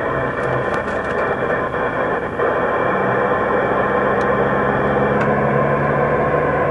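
CB radio receiver on the 27 MHz band hissing with static on an open channel, with a steady low hum joining about three seconds in.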